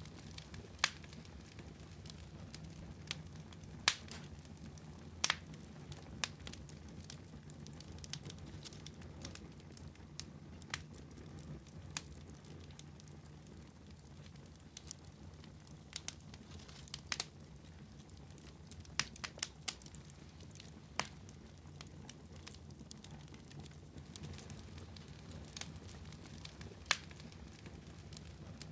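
Wood fire crackling in a fireplace: irregular sharp pops and snaps, about one a second, over a low steady background.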